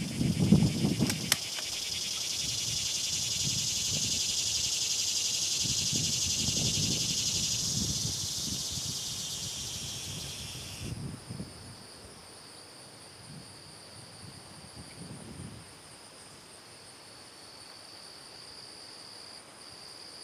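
Insects buzzing in a loud high chorus that swells, then cuts off abruptly about eleven seconds in, leaving a fainter steady high trill. Low gusts of wind rumble on the microphone underneath.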